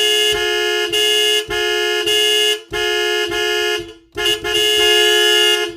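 Electric car horn sounding in a run of honks, each about a second long with short breaks between. It is two close tones sounding together.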